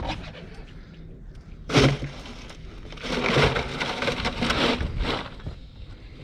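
A dorado being pushed head first into a cooler of ice slush: about two seconds of crunching ice, after a short loud knock about two seconds in.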